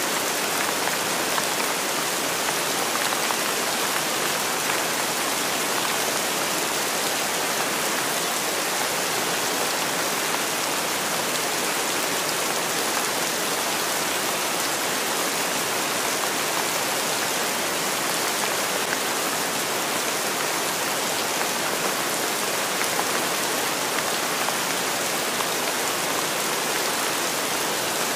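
Steady rain falling, an even, unbroken hiss with no separate drops or other events standing out.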